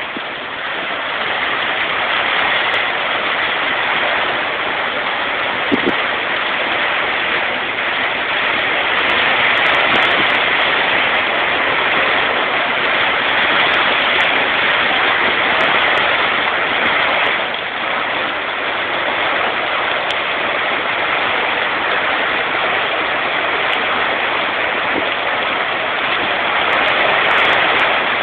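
Steady heavy rain falling, an even hiss that keeps on without a break.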